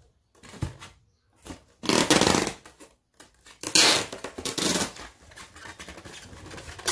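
Packing tape being pulled off its roll in several noisy strokes. The loudest come about two and four seconds in.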